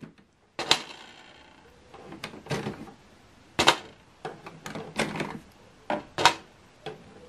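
Plastic ink cartridge being unclipped and pulled from the carriage of an Epson WorkForce WF-2910 printer: three sharp plastic clicks, with softer scraping and rattling between them.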